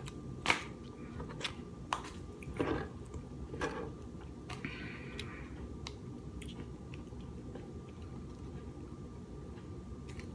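Eating king crab legs: chewing, with several sharp clicks of crab shell being handled and cracked in the first four seconds, then quieter chewing over a steady low hum.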